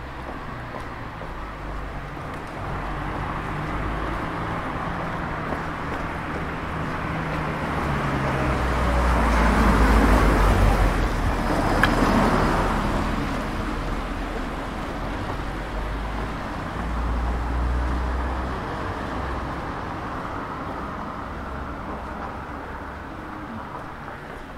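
Cars passing close by on a town street: tyre and engine noise swelling to a peak about ten to twelve seconds in, then fading, with a smaller pass a few seconds later.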